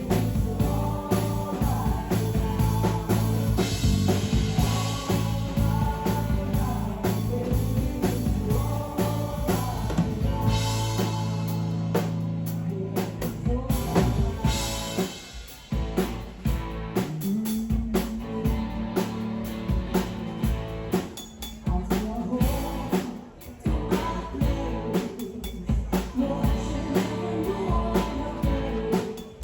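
Background music with drums and a singing voice.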